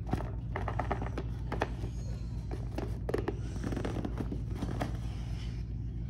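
A cardboard box being cut and pulled open by hand: a string of irregular scrapes, rustles and clicks of cardboard and tape, over a steady low hum.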